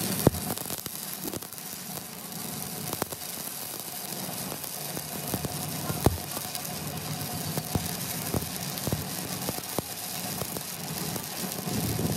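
Stick-welding arc crackling and sizzling steadily as the electrode lays build-up weld beads on a worn steel excavator bucket pin, with scattered sharp pops.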